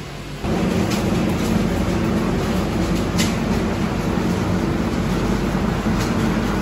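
A loud, steady noise with a low hum in it starts abruptly about half a second in and runs on evenly, with a couple of brief high sounds over it.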